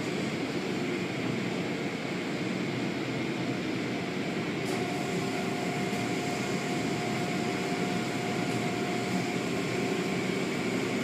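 Automatic car wash machinery running: a steady mechanical noise, with a faint steady hum tone joining about halfway through.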